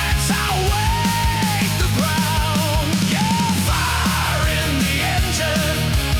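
Heavy rock music in an instrumental passage: a lead line that bends and wavers in pitch over a driving bass and drums.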